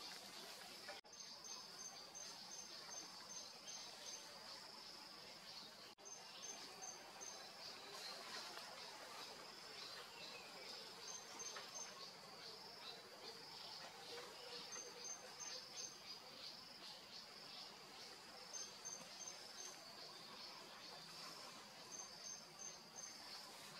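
Faint insect chorus: a steady high shrill, with short runs of higher, evenly spaced chirps repeating every few seconds.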